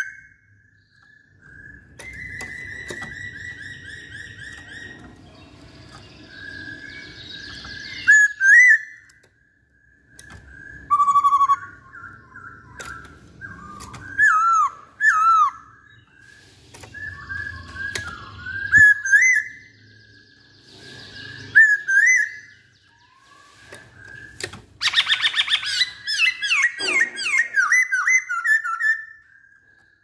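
A caged poksay Hongkong laughingthrush singing loud, varied whistled phrases with short pauses between them, breaking into a fast run of notes near the end.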